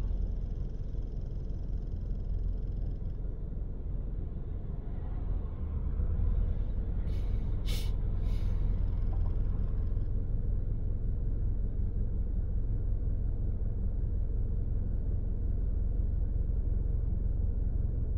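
Low steady rumble of a stationary car idling, heard from inside its cabin. There is a brief hiss about eight seconds in.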